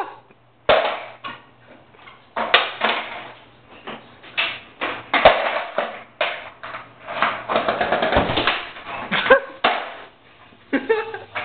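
Unclear voices and commotion in a small, echoing room, with a few sharp knocks, about one a second in and another about five seconds in.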